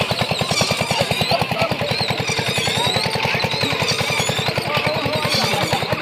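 A small engine running steadily at an even, fast chug, with the voices of a crowd and children in the background.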